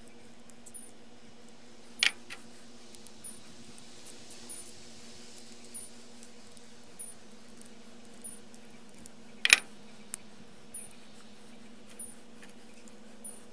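Small metal clicks and taps of a Leatherman multitool being handled and put back together, with two sharper, louder clicks, one about two seconds in and another about seven seconds later, over a steady low hum.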